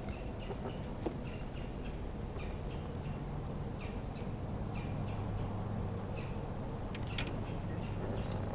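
Small birds chirping in short, repeated calls, several a second, over a low steady rumble, with one sharp click about a second in.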